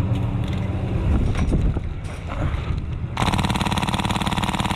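Rumbling noise like wind on the microphone, then about three seconds in a rapid full-auto gun burst lasting about two seconds.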